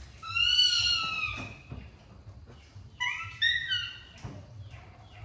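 Baby monkey crying out twice with high-pitched calls about a second long each, the second starting about three seconds in.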